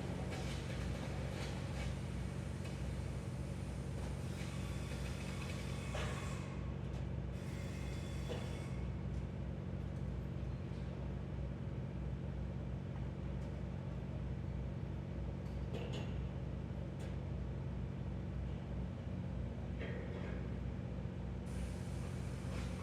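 Steady low mechanical rumble of engines and traffic, with several held low hums. A few faint knocks come about six and sixteen seconds in.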